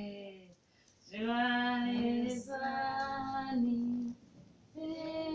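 Several voices, women's and children's, singing together in long held notes. The singing starts about a second in, breaks off around four seconds, and comes back in near the end.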